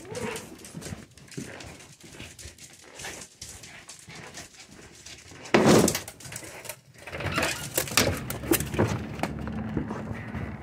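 A dog whimpering, with rustling and knocking from the camera being handled; one short loud sound comes about halfway through.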